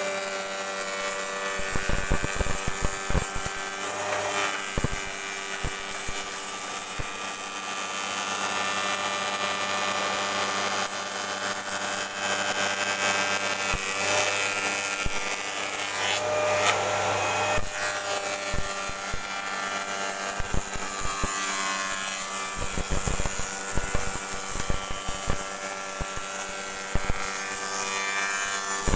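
Spindle moulder running with a steady whine as its spinning cutter shapes the edge of a wooden board fed by hand along the fence. The cutting noise is loudest a little past halfway, with scattered sharp knocks throughout.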